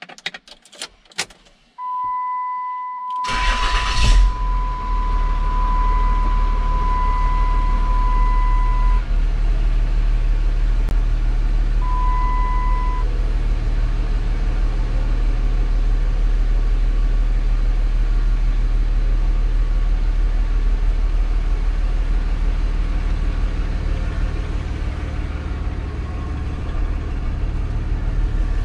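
Third-generation Ram 2500's Cummins common-rail diesel being started from the cab: a few key clicks, a steady high warning chime, then a short burst of cranking as the engine catches about three seconds in, settling into a steady low diesel running note as the truck drives off. The chime stops after several seconds and sounds again briefly around twelve seconds in.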